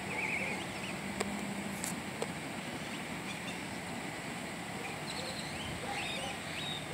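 Steady outdoor background noise of a street, with small birds chirping briefly at the start and several times in the second half, and a couple of faint clicks.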